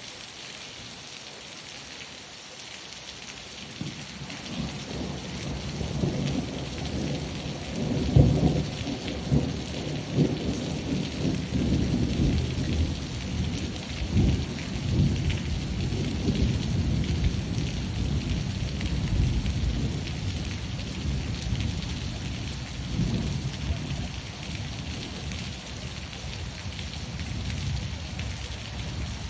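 Steady rain falling, with a long roll of thunder. The thunder builds from about four seconds in, cracks loudest at about eight seconds, and keeps rumbling through most of the rest.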